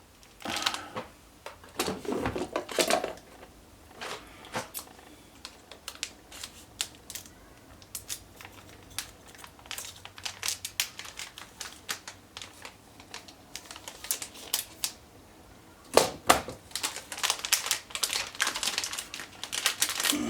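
Handling of a replacement laptop battery and the laptop: a scattered run of small clicks and taps, with denser rustling and clattering about a second in and again near the end.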